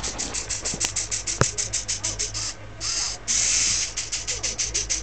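Small DC gear motors of a homemade tracked robot driving its plastic tracks: a rapid pulsing hiss, about six or seven pulses a second, giving way to longer steady runs in the second half. A sharp click about one and a half seconds in.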